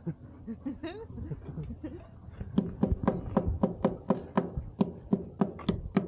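A hand tool striking ice over and over, about four sharp strikes a second, starting about two and a half seconds in: ice being chipped off a deck fitting frozen shut.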